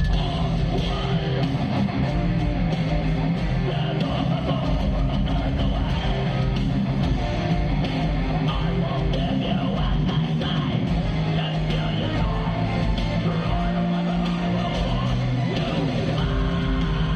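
Heavy metal band playing live in an arena, with distorted electric guitars, bass and drums in a dense, steady wall of sound.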